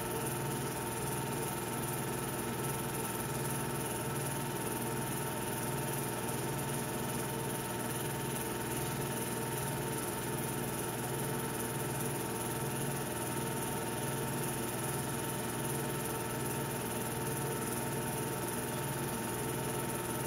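Film projector running: a steady mechanical whir and hum over even hiss, unchanging throughout.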